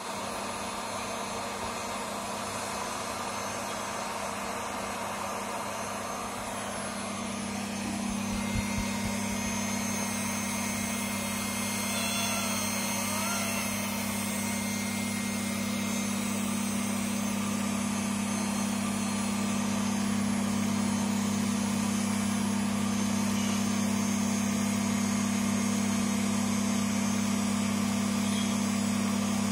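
Steady hum of an electric machine, a low drone that steps up in level about eight seconds in, with a dull thump at that point.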